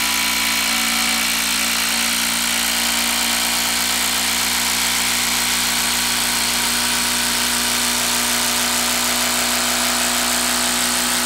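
A Hilti 12-volt brushless impact driver hammering steadily as it drives a long TimberLOK screw into a wooden log, its impact mechanism running continuously under heavy load at a constant rate.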